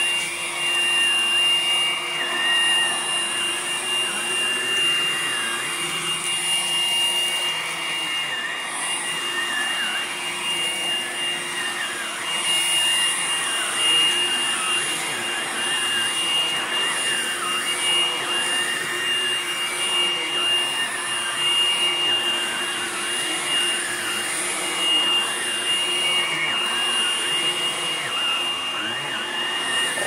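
Hoover Blade Plus cordless stick vacuum running steadily, with a constant high motor whine and a lower tone that wavers up and down as it works.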